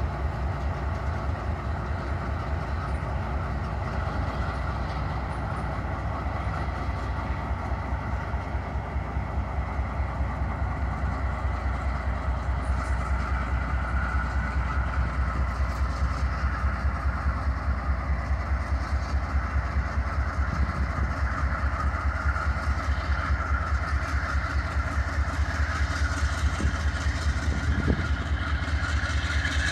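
Union Pacific diesel-electric locomotive running as it moves a train of rail-loaded flatcars, a steady low engine throb with rail and wheel noise, getting a little louder near the end.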